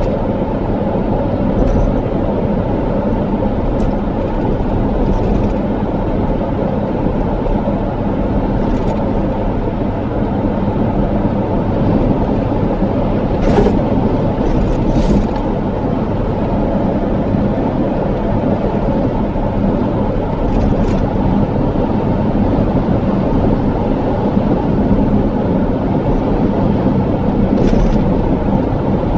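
Steady engine and tyre noise of a car driving along a road at a constant pace, with a couple of short knocks about halfway through.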